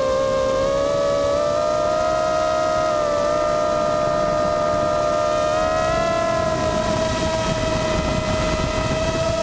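Electric motors and two-blade 5-inch propellers of an FPV racing quadcopter, heard from its onboard camera. They give a steady, siren-like whine over air rush, and the pitch shifts gently with throttle, dipping briefly and rising a little about six seconds in.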